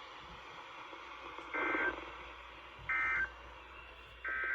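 Three short bursts of Emergency Alert System SAME digital data tones on NOAA Weather Radio, buzzy two-tone warbles each about a third of a second long and about 1.3 seconds apart: the End of Message code that closes an alert.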